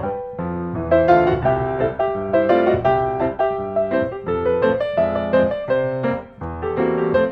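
Piano music: a melody of quick notes over a bass line, played steadily.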